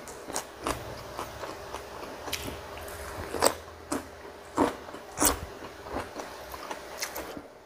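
A person chewing and crunching mouthfuls of Isan papaya salad with fried grasshoppers and dried fish: irregular crisp crunches with wet chewing between them, the loudest about three and a half and five seconds in.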